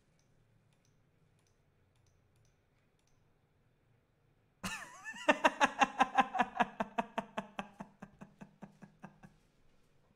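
A man giggling: after a short gliding squeal about halfway through, a fast run of pitched laugh pulses that fades out about a second before the end.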